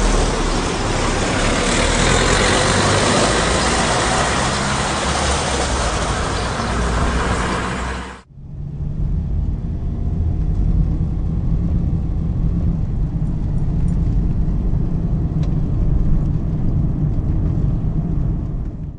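Road traffic noise, a loud steady rush, for about the first eight seconds. It then cuts suddenly to the low, steady engine and tyre rumble of a car driving along a main road, heard from inside the cabin.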